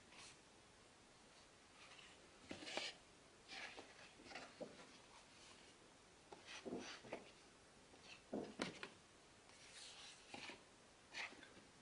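Stiff pages of a photobook being turned and unfolded by hand: a series of short, soft paper swishes and rustles, with a sharper flick of paper about two-thirds of the way through.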